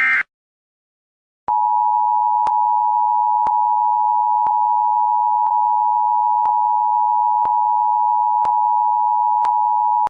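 Emergency Alert System alert tones. It opens with the end of a short warbling data burst. After about a second's pause comes the two-tone attention signal, a loud steady dual tone held for about eight and a half seconds, with a faint tick about once a second.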